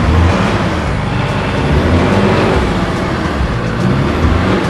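A motor vehicle's engine running, with music playing underneath.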